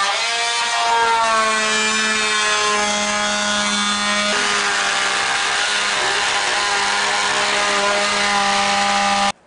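Corded oscillating multi-tool running and cutting through vinyl plank flooring. It gives a loud, steady, pitched whine that sags briefly under load near the start, turns rougher and noisier about four seconds in as the blade bites, and cuts off abruptly just before the end.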